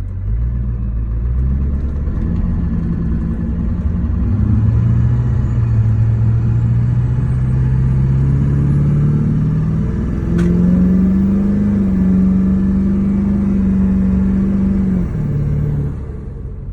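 LB7 6.6-litre Duramax V8 turbodiesel running. Its pitch climbs slowly, jumps higher about two-thirds of the way in and holds, then drops back and fades shortly before the end.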